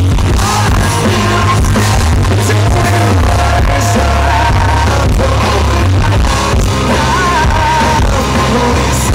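Rock band playing live with a male lead singer, electric guitars and heavy bass. The recording is loud and distorted.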